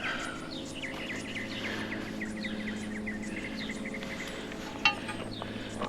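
A quick series of short, high chirps from a small bird, fading out about three seconds in, over a steady low hum. There is one sharp click near the end.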